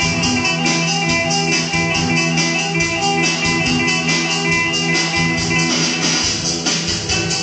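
Instrumental passage of a home-recorded song: guitar over a steady, fast percussion beat.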